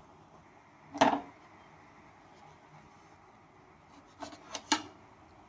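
Handling knocks: one sharp knock about a second in, then three quick clicks near the end, over faint room tone.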